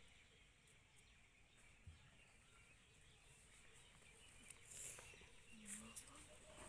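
Near silence: faint outdoor ambience, with a few faint chirps and ticks and a brief high hiss about five seconds in.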